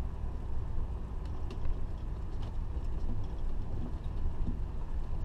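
Steady low rumble of a Fleetwood Flair Class A motorhome driving slowly, with a few faint clicks and rattles over it.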